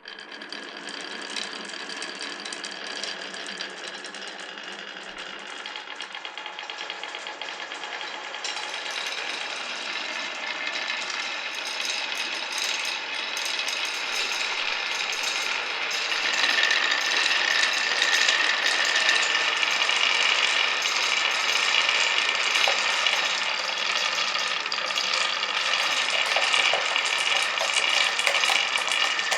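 Many glass marbles rolling and clattering down a wooden marble run, a dense continuous rattle of clicks that grows steadily louder as more marbles run the course. A steady high ringing tone joins about halfway through.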